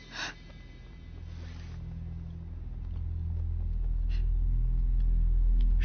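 Low, steady rumbling drone from the soundtrack, swelling gradually louder, with a brief soft whoosh just after the start.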